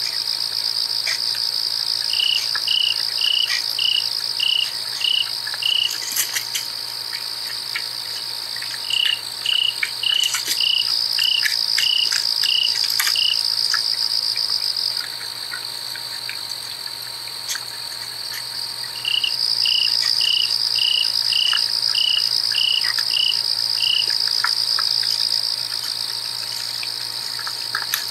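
Night insect chorus, crickets: a steady high trill throughout, with a lower series of regular chirps, about three a second, coming in three bouts.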